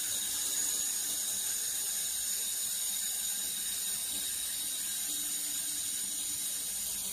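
Handheld fiber laser welder running a continuous fillet weld on steel plate: a steady hiss from the welding head, with a faint high whine.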